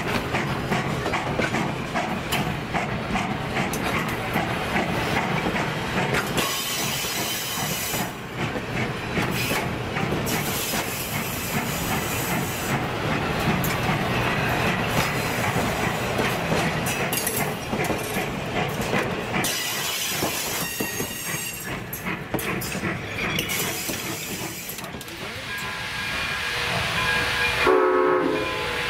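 A train running past on the rails, wheels rumbling and clattering over the track. Near the end its warning signal starts sounding as a chord of several steady tones.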